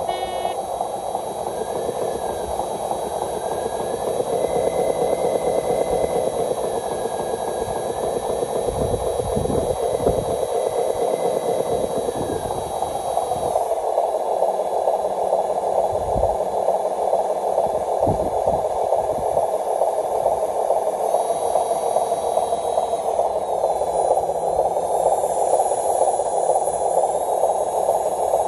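Small electric drive motor and gearing of a homemade RC truck whining steadily as it crawls along, with a few low thumps partway through.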